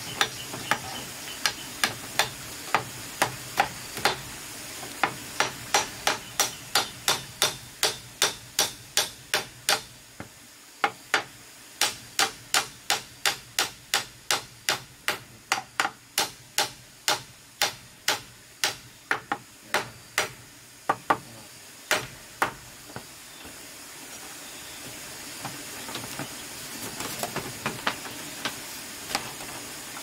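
Machete knocking on small bamboo pegs in a green bamboo table frame, about two sharp strikes a second, with a brief pause about a third of the way through. Near the end the strikes thin out to a few scattered knocks.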